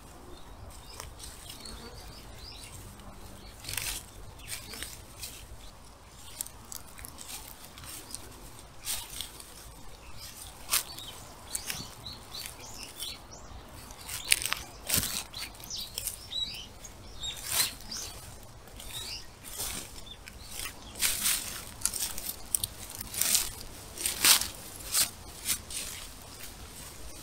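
Grass and weeds being cut by hand close to the ground: a run of short, crisp crunching snips of stalks at irregular intervals, coming thicker and louder in the second half.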